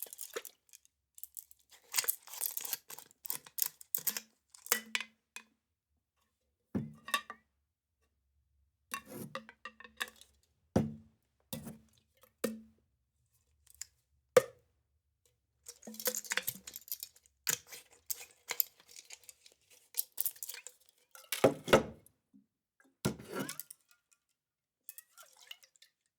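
Metal flask with liquid inside shaken in short bouts, the liquid sloshing and splashing against the metal walls, with a few sharper knocks. The bouts stop and start with silent pauses between them.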